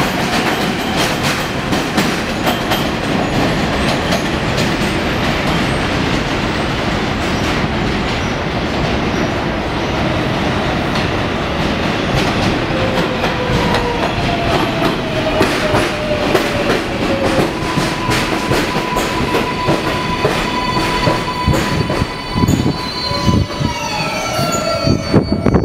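R142A New York subway trains on an elevated line: one running along the far track, then a 6 train pulling in along the near track, wheels rumbling and clattering over the rails with some squeal. Its motor tones fall in pitch in the last few seconds as it brakes to a stop.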